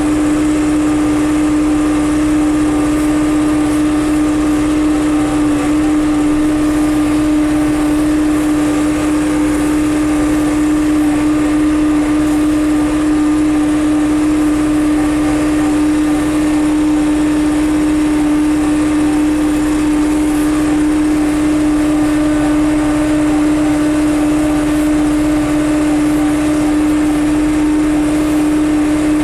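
John Deere 6300 tractor's diesel engine running at a steady speed under load, with a strong, even hum that does not change.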